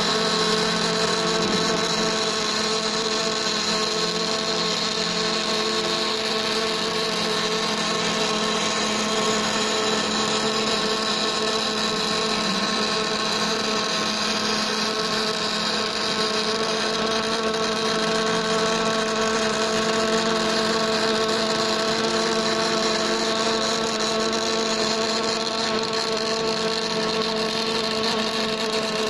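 Automatic pipe inner-wall overlay welding machine at work: a steady hum with several steady tones from the machine, over the continuous hiss of the welding arc inside the pipe.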